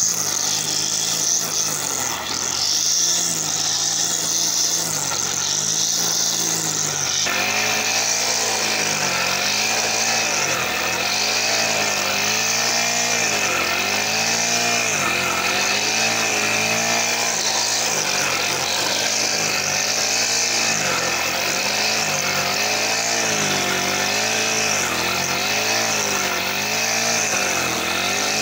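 Brush cutter with a nylon line head running fast while mowing grass. Its engine pitch dips and recovers about once a second as the head sweeps through the grass. The sound shifts abruptly about a quarter of the way in, and a steady higher whine joins it from there.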